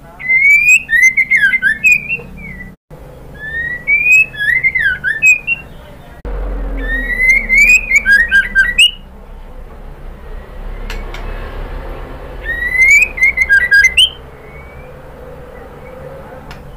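White-rumped shama (murai batu) singing four short bursts of loud whistled phrases that swoop up and down, laced with rapid high clicks and trills, the last after a pause of a few seconds. The song is offered as a female calling to a male, used as a lure to set males singing.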